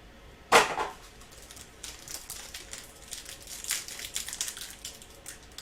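Trading cards and their packaging being handled on a table: small clicks, taps and crinkles, with one sharp crinkle or knock about half a second in.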